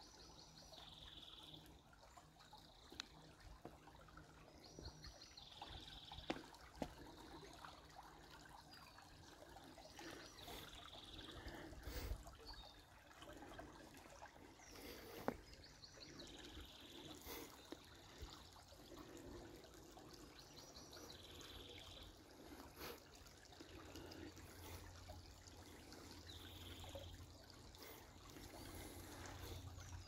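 Faint trickle of a shallow, rocky creek. A songbird repeats the same short high phrase, a quick run of notes followed by a held note, about every five seconds, and there are a few soft knocks.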